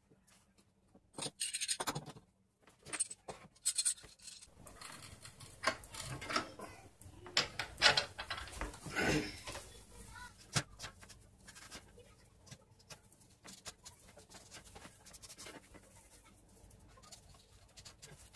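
Bench handling noises: wooden pieces knocking and rubbing together and a steel C-clamp being fitted over the glued-up chisel rack, as irregular clicks, knocks and rustles. They are busiest in the first ten seconds and turn to sparse, fainter clicks after that.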